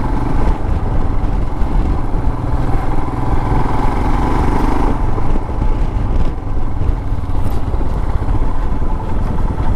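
Royal Enfield Himalayan's 411 cc single-cylinder engine running steadily, a constant low rumble.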